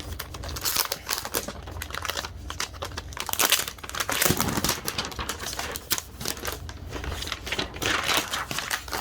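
Plastic packaging crinkling and rustling as it is handled and pulled off a new laptop, an irregular run of crackles.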